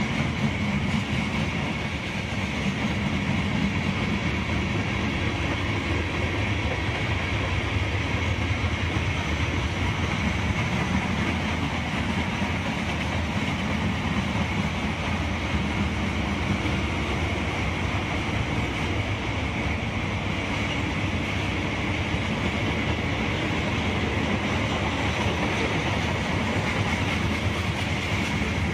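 A Norfolk Southern mixed freight train rolling steadily past, its cars' wheels rumbling and clattering on the rails without a break.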